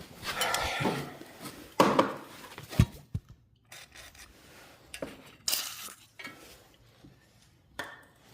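Hand tools such as pliers clinking and clattering against the snowblower engine's sheet-metal tin while a stuck bolt is worked on, with a sharp knock about three seconds in.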